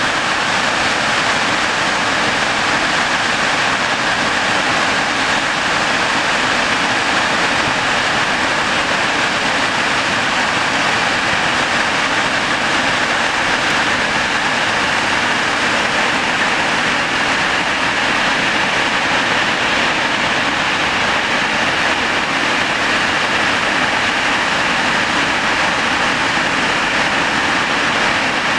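Snoqualmie Falls' large waterfall pouring over its brink: a loud, steady rush of falling water that does not let up.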